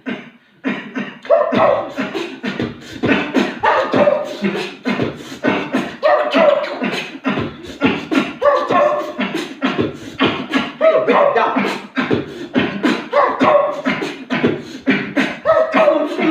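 Vocal beatboxing built from cough sounds: sharp mouth percussion with a short voiced phrase that repeats about every two and a half seconds, starting just after a brief pause.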